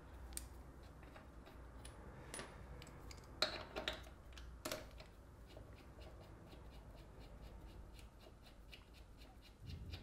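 Hand-tool work on a motorcycle's rear brake caliper bolts: scattered metal clicks and clinks, loudest about halfway through, then a run of faint, even ticks about three a second as a bolt is wound out.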